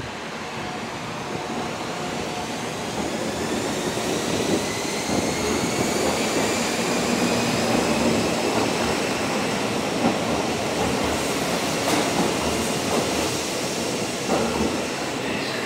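Sanyo Electric Railway 5000-series electric train pulling out and accelerating: its motor whine rises steadily in pitch over the rumble of wheels on rail, growing louder as the cars pass.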